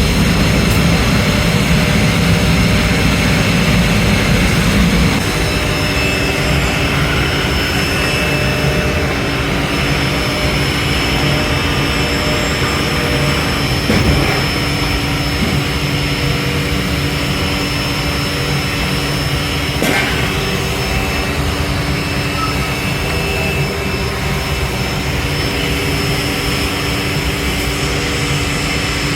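Factory machinery running steadily and loudly, with several constant hums and whines over a noisy din. The deepest rumble drops away about five seconds in, and a sharp knock comes about halfway through.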